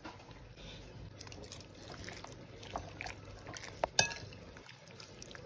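Paprika being shaken from a spice container onto raw chicken pieces in a glass bowl, with light scattered ticks. About four seconds in come two sharp clinks against the glass bowl, the second one ringing briefly.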